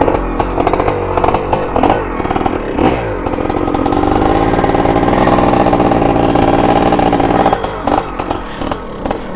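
Dirt bike engine under load on a steep hillclimb, revving unevenly at first. From about three seconds in it holds at high, steady revs for some four seconds, then drops off into short blips of the throttle.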